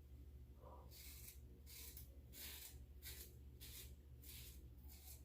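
Ever-Ready lather catcher single-edge razor with a Gem blade scraping through lathered stubble in short, faint strokes, about two a second. A steady low electrical hum runs underneath.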